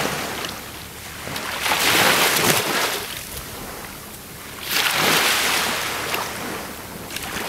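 Sea surf breaking and washing onto a beach, swelling twice, about two and five seconds in.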